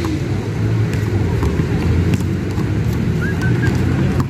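Steady low rumble of motor-vehicle noise, with a few faint knocks of a basketball bouncing on an outdoor hard court.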